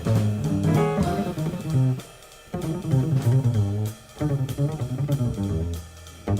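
Instrumental jazz passage: a guitar plays a melodic line over bass and drums, with brief breaks where the band drops out about two seconds in and again near the end.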